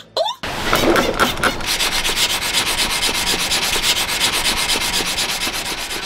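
Metal balisong piece being ground on a spinning powered grinder wheel: a steady rasping grind with a fast, even ticking running through it, starting about half a second in.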